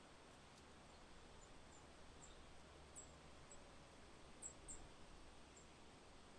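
Near silence: a faint steady hiss with a scattering of faint, very high, short chirps, most of them around the middle.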